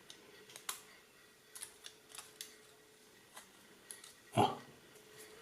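Faint, scattered small clicks and scratches of fingers and a tool working at a tiny camera lens module, picking at the tape that holds its ribbon cable. A single louder short sound comes about four seconds in.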